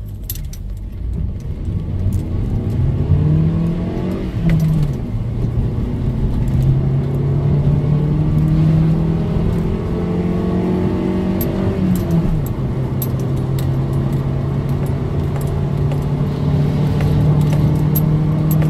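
Hyundai Getz 1.4 litre DOHC 16-valve four-cylinder engine pulling at full throttle from a standstill through a five-speed manual, heard from inside the cabin. Its pitch rises through first gear, drops at an upshift about four seconds in, rises through second, drops again at the shift to third about twelve seconds in, then climbs slowly. The driver shifts early, short of 5,500 rpm, because the engine loses power above that.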